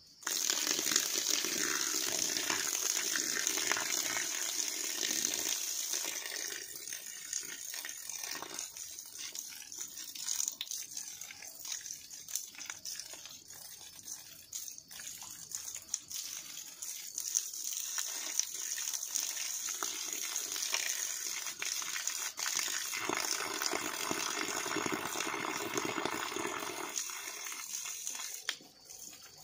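Water gushing from a hose pipe and splashing onto the bare soil at the foot of the bank, filling a dug pond. The rush starts suddenly, eases off partway through, grows stronger again and drops off near the end.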